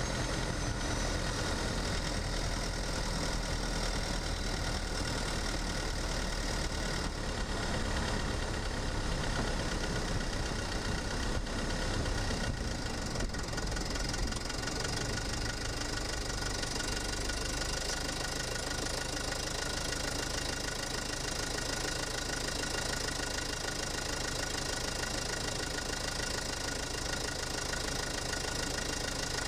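Mercedes-Benz OM651 2.1-litre four-cylinder twin-turbo diesel running at low revs, heard from a microphone inside the engine bay: steady diesel clatter with faint whines layered over it.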